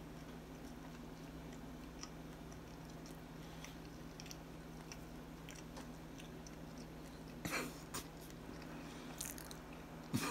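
A person chewing a mouthful of chili and cornbread close to the microphone, with faint soft mouth clicks over a steady low hum. Two louder brief sounds come through, one about three-quarters of the way in and one at the very end.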